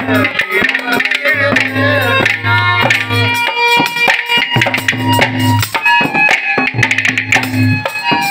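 Haryanvi ragni folk accompaniment: a dholak drumming a steady rhythm under a harmonium playing held reed notes and a melody.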